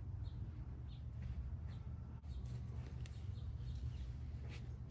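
Faint, scattered bird chirps over a steady low rumble.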